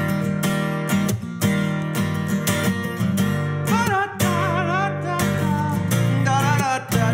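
Steel-string acoustic guitar strummed in a steady rhythm. A man's singing voice comes in over it a little past halfway and again near the end.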